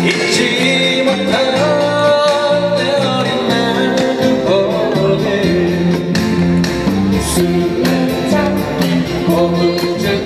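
Live acoustic band playing a song: strummed acoustic guitars with a djembe beat, and a melody line carried over the chords.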